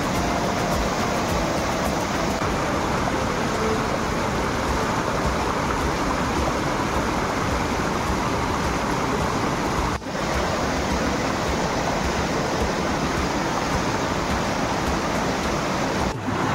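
Steady rush of a small mountain waterfall and stream pouring over boulders. The sound dips briefly about ten seconds in and again near the end.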